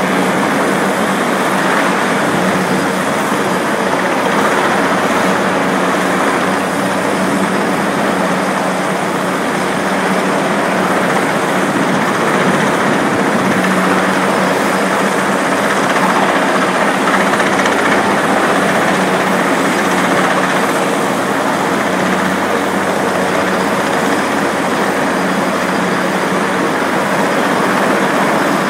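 Helicopter hovering low over a rooftop while setting an air-conditioning unit in place: a loud, steady drone of rotor and engine with a steady low hum underneath, unchanging throughout.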